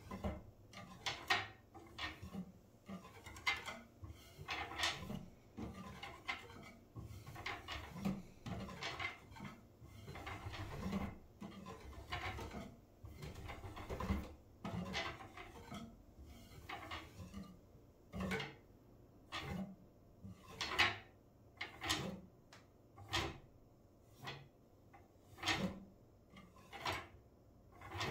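Fingers tapping and brushing across the wooden spindles of a spindle-back wooden chair, making light woody clicks and knocks. The taps come thick and fast at first, then about halfway through they thin out to single taps roughly once a second.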